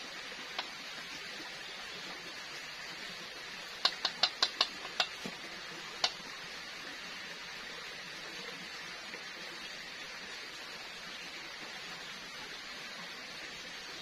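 Oil sizzling steadily in a small frying pan. A metal utensil taps against the pan: once under a second in, a quick run of about six taps around four to five seconds in, and once more a second later.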